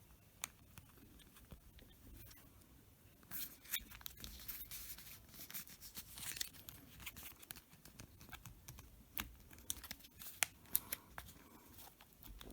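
Faint scattered clicks, scratches and crinkling of small laptop parts being handled and pressed into place during reassembly.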